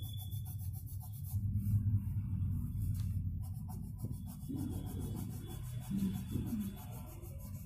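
Green colouring pencil rubbing back and forth on paper as a drawn shape is shaded in: a continuous scratchy rubbing of close strokes.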